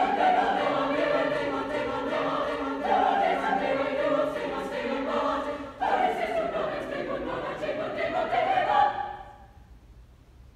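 Mixed high school choir singing a loud, a cappella passage. The voices enter suddenly, break off briefly about six seconds in, come back in, and stop about nine seconds in, leaving the hall's reverberation to fade.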